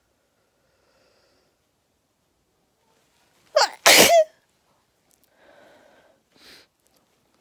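A person's stifled sneeze: one short, sharp sneeze about halfway through, in a quick double burst. It is followed by faint breathing and a brief sniff near the end.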